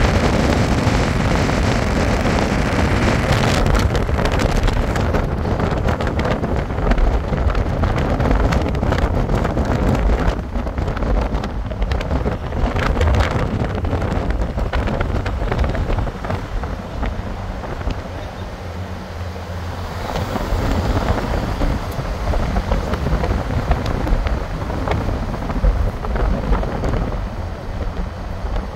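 Road noise of a moving car, with wind buffeting the microphone in uneven gusts.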